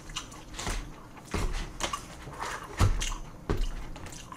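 Chopsticks clicking and knocking against a plastic takeout tray while dumplings are picked up: several short, irregular clacks, some with a dull thump.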